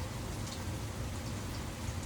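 Steady rain falling, with a few separate drops ticking over a low, steady rumble.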